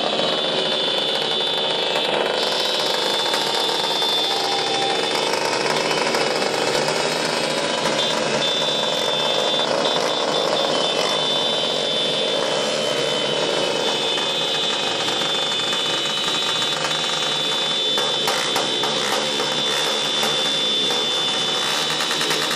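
Many small motorcycle engines running and revving together in a continuous, dense din, with a steady high-pitched tone held over it.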